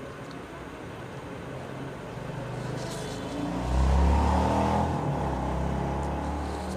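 A motor vehicle's engine running close by, swelling to its loudest about four seconds in and then slowly easing off, as of a vehicle passing.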